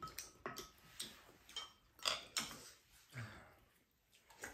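Spoons and chopsticks clicking and scraping against ceramic bowls during a meal, in irregular clinks a few per second, with some mouth sounds of eating in between.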